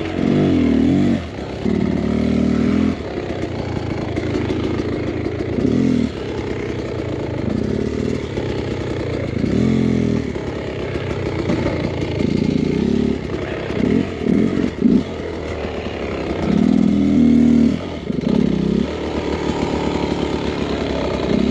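Dirt bike engine revving in repeated short bursts and dropping back between them, as the bike is worked at low speed over fallen logs and brush.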